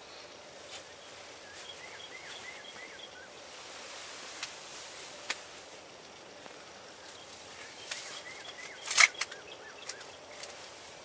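Outdoor ambience with two short series of quick repeated bird calls, one early and one near the end. A few sharp clicks fall in between, and a louder cluster of knocks comes about nine seconds in.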